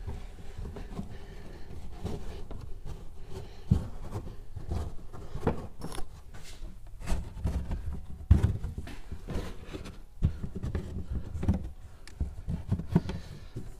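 Hands working inside a car trunk: irregular light knocks, thumps and rustling as panels and trunk carpet are handled and set in place. The loudest thump comes about eight seconds in.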